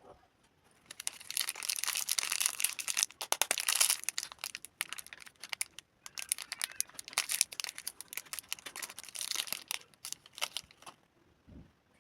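Plastic candy wrapper crinkling as it is handled and unwrapped, in two long stretches of crackling with a short break about halfway through.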